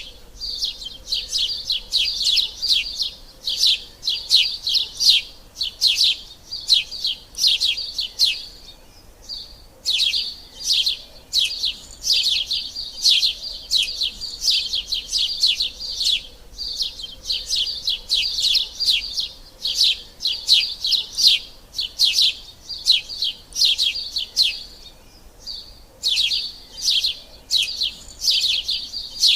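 Sparrows chirping in a rapid, continuous string of short, sharp calls, several a second, with two brief pauses.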